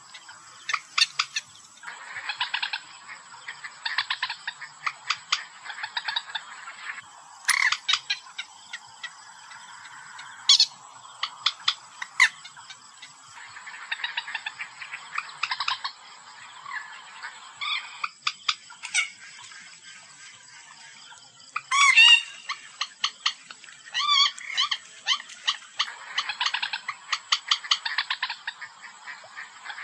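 Common moorhen calls from a hunting lure recording: repeated bursts of rapid, pulsed chattering, broken by a few sharp single calls.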